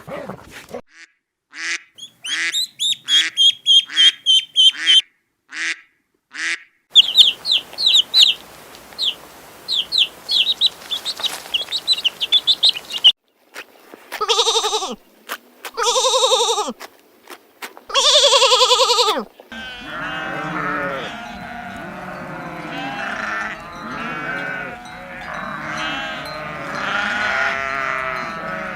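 Quick high-pitched chirping for the first dozen seconds, then three long bleats, then a flock bleating over one another.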